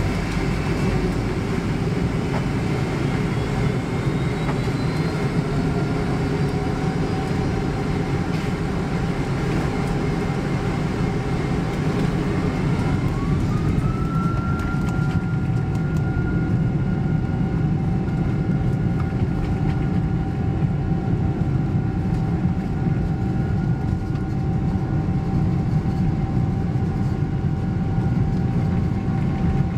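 Boeing 767-300 jet engines heard from inside the cabin: a loud, steady rumble with a whine that rises in pitch about halfway through and then holds steady.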